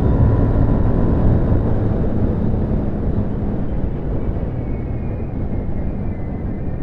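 2007 Hyosung GT650R's 647 cc V-twin engine running under way, heard through in-ear binaural microphones, its pitch and loudness easing slowly down as the bike slows.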